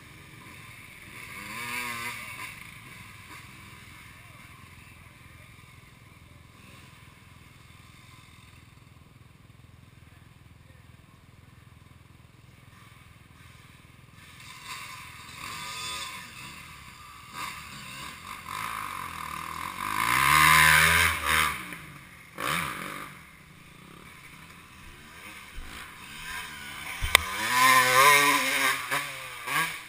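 Dirt bike engines revving hard as riders climb a steep dirt hill, the pitch rising and falling with each throttle blip. The revving comes in several passes: loudest about 20 seconds in and again near the end, with a quieter stretch of distant engine sound in the first half.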